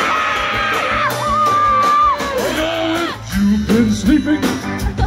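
Live band playing amplified music with electric guitars and drums. A singer holds a long high note that ends about two seconds in, then a lower voice carries on over the band.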